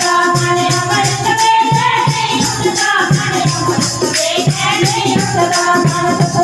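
Devotional bhajan music in an instrumental passage: a held, gliding melody line over a steady drum beat, with jingling percussion on the rhythm.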